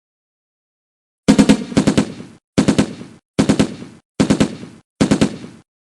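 Rapid gunfire in six short bursts of three or four shots each, starting a little over a second in and stopping abruptly near the end.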